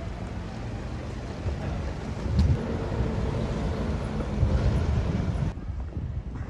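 Road traffic on a busy city street, a steady noise of passing vehicles with uneven low rumbling surges, with wind buffeting the phone's microphone.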